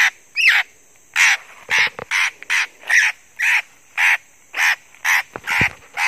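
Harsh, rasping bird calls repeated in a regular series, about two a second.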